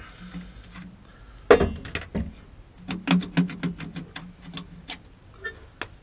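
Cordless drill and tools handled at the base of a water heater: a sharp knock about a second and a half in, then a quick run of clicks and taps.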